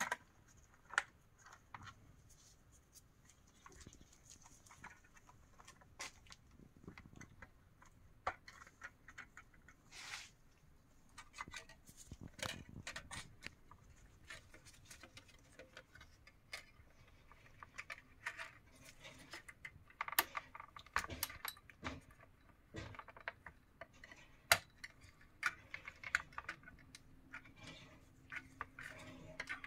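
Faint, irregular clicks and taps of small plastic parts being handled and fitted while a car's instrument cluster is reassembled.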